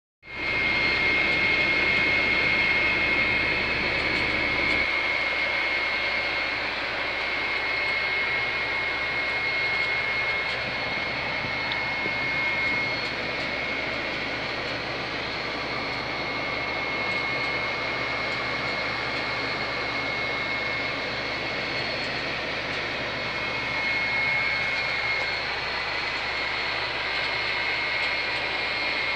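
Sandstorm wind heard from inside a truck cab: a steady rushing noise with a high, unwavering whistle through it, and a low rumble that drops away about five seconds in.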